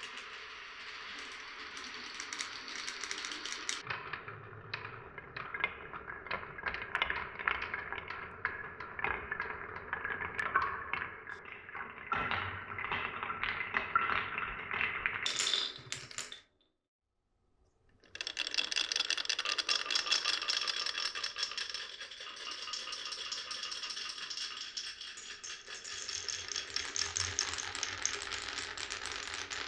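Marbles rolling and clacking through a wooden marble run, many small hard clicks in quick succession. The sound cuts out for a moment a little past halfway, then comes back as a denser, steadier rolling clatter.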